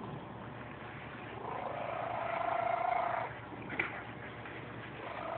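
Domestic cat snoring in its sleep: one raspy snore of about two seconds, with the next snore starting near the end, in a slow rhythm with the breathing. A short click falls between the two snores.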